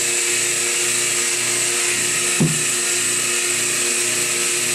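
Bullard air pump running steadily, a constant noisy hum over hiss, as it pumps air into a homemade hyperbaric chamber and builds the pressure. A brief knock comes about halfway through.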